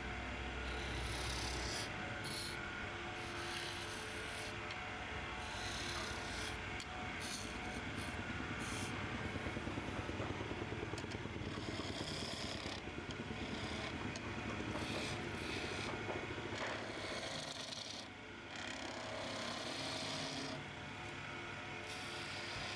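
Hand turning tools cutting a spinning oak spindle on a wood lathe: a continuous rough scraping of the edge shaving the wood, dipping briefly about eighteen seconds in.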